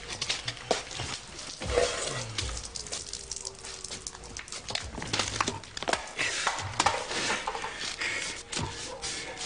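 A man gulping beer from a can and gasping and grunting between swallows, with scattered sharp clicks and knocks.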